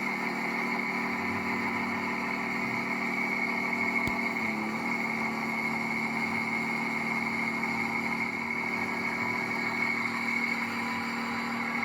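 Cummins 5.9-litre inline-six turbo diesel of a 1998 Dodge Ram 2500 idling steadily, with a steady high turbo whine over the diesel rumble.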